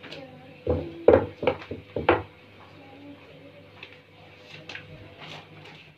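Wooden rolling pin knocking and rolling on a wooden board as dough is rolled out: four or five sharp knocks in the first two seconds, then a few lighter taps.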